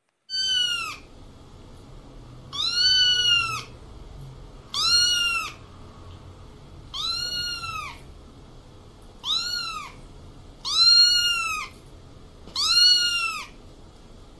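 A kitten meowing seven times, about every two seconds; each meow is high-pitched and rises then falls.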